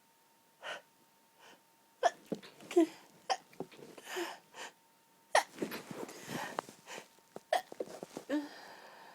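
A woman's stifled allergy sneezes: after a couple of soft breaths, a fit of about four short, sharp, held-in sneezes starting about two seconds in, with quick gasping in-breaths between them.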